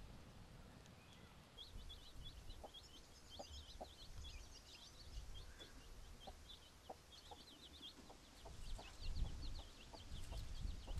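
Chicks peeping in quick runs of short, high, falling notes, with a hen's low clucks now and then. A low rumble grows louder near the end.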